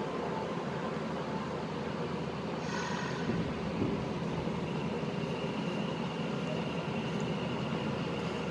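Nagoya Municipal Subway 6000 series train running between stations, heard from inside the car: a steady rumble of wheels on rail. A faint steady high whine joins about halfway through.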